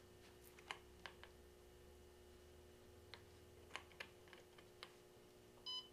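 Faint key clicks as the BEEP command is typed on a Tandy TRS-80 Model 100's keyboard, then a short electronic beep from the computer near the end, answering the command.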